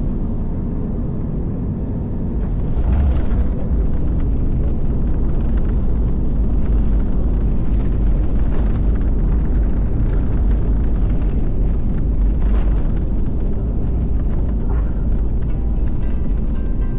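Cabin noise of a jet airliner on its landing roll: a steady low rumble that gets louder and harsher about two and a half seconds in and stays loud as the jet slows with its ground spoilers raised.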